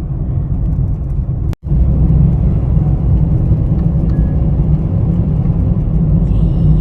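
Steady low rumble of a car driving along the road, heard from inside the cabin. The sound drops out for an instant about one and a half seconds in.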